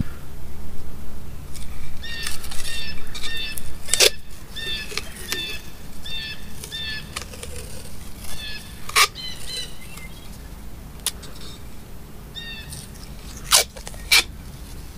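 A small bird chirping a short, repeated note two or three times a second, in two runs. Over it come a few short, sharp crackles of masking tape being pulled off the roll and wound onto a pipe.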